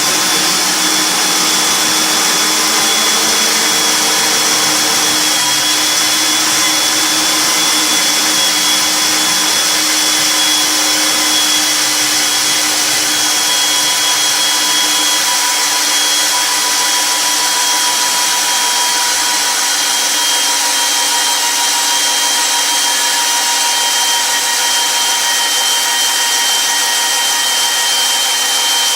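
Magnetic-base drill running steadily while boring a hole through steel, its motor pitch sagging slowly as it is pushed hard into the cut.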